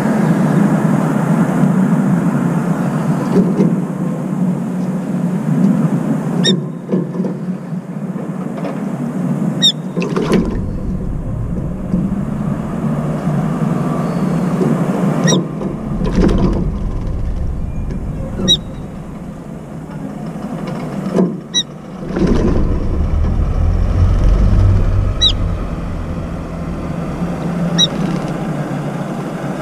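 Steady hum of city traffic from the streets below, with deep rumbles of passing vehicles swelling and fading. Several brief high bird chirps stand out, spread a few seconds apart.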